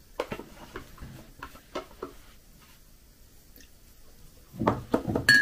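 Spoon clicking and scraping in a plastic tub of macadamia nut butter, with mouth sounds of eating. Near the end a louder clatter, then a short ringing clink.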